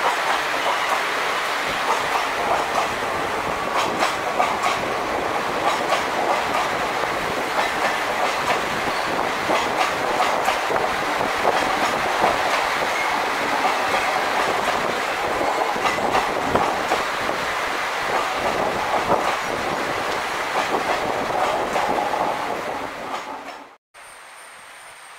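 Indian Railways passenger coaches rolling past at speed, the wheels clattering over the rail joints in a steady stream of clicks. About a second before the end the sound fades and cuts to a much quieter background with a faint steady high whine.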